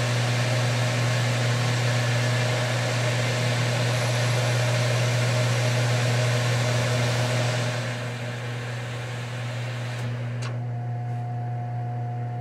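Manual lathe running with a steady low motor hum while a parting tool cuts a groove in aluminium bar stock, recutting it to clear metal that smeared into the cut. The cutting hiss eases about two-thirds of the way through, and a steady higher tone comes in near the end while the lathe keeps running.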